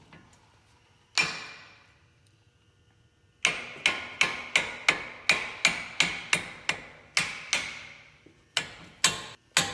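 Hammer blows on a ringing metal part: a single strike, a pause, then a steady run of strikes about three a second with a short break near the end.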